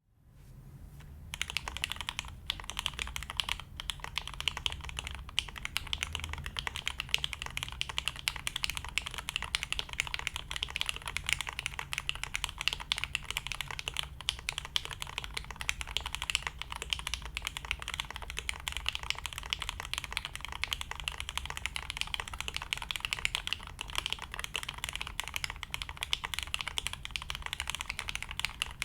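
Continuous fast typing on a custom mechanical keyboard: broken-in Hyperglide linear switches, lubed and filmed, on a stainless steel plate, with GMK keycaps. The typing starts about a second in.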